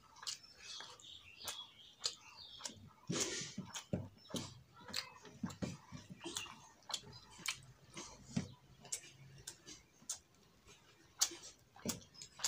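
Eating rice by hand from a steel plate: irregular wet clicks and smacks of chewing, with fingers mixing rice on the plate.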